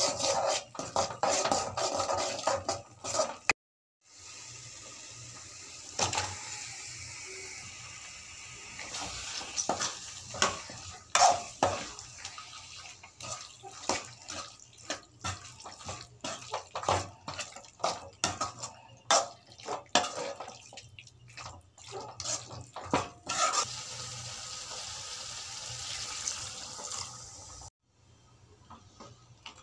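A steel spoon scraping and knocking against an aluminium pan while thick masala, and later raw chicken pieces, are stirred in it, over a steady hiss. The sound cuts out sharply twice, near 4 s and near the end.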